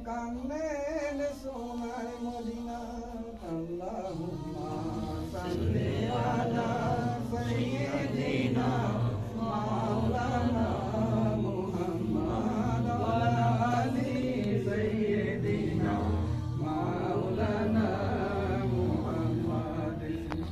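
Devotional chanting by voices singing a slow, wavering melody, which grows fuller and louder about four seconds in.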